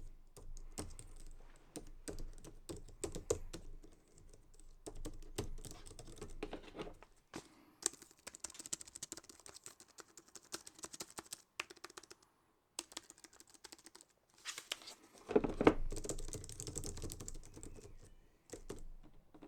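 Typing on a Logitech MX Keys keyboard's low-profile keys: rapid runs of soft key clicks broken by short pauses, with a louder stretch and a thump about three-quarters of the way through.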